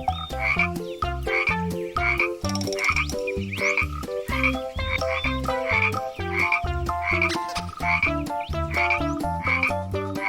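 Frogs croaking in a steady repeated rhythm, a little under two croaks a second.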